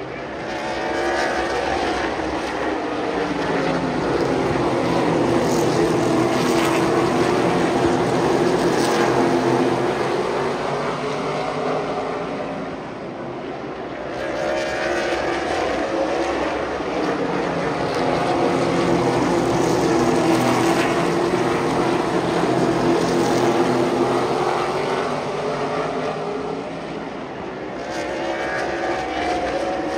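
A field of super late model race cars' V8 engines running at racing speed on a short oval. The combined engine sound swells as the cars come past and falls away twice.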